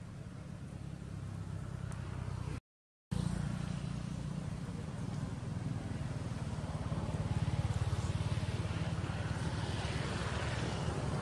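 Steady low engine-like rumble with a hiss above it, cutting out completely for about half a second near three seconds in.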